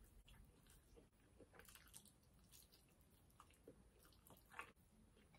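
Faint chewing and biting of a fried chicken wing, soft scattered mouth clicks and squishes; one sharper click about four and a half seconds in is the loudest.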